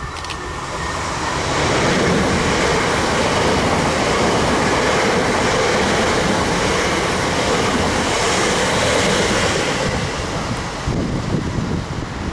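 Electric multiple unit passing close by at speed: a loud rush of wheels on rails and air, building over the first two seconds, holding steady, then fading after about ten seconds.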